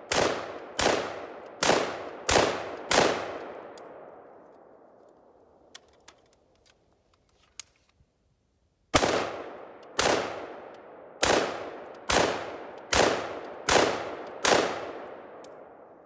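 AR-15 rifle firing single shots in quick succession: five in about three seconds, a pause of several seconds, then seven more at roughly one a second. Each shot trails off in a long echo.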